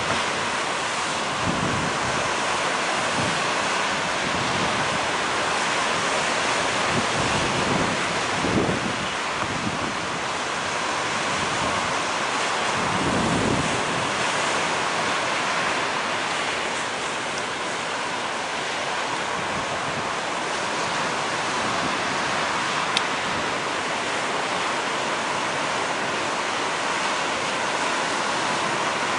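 Ocean surf: a steady wash of breaking waves, with a few deeper swells rolling in during the first half.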